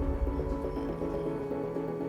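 Instrumental background music: sustained chords over a heavy bass that thins out about a second in.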